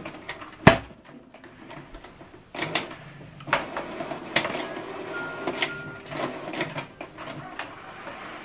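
Canon PIXMA TS9155 inkjet printer initialising after power-on: a sharp knock under a second in, then from a few seconds in its mechanism runs with a string of clicks, clatter and brief motor whines.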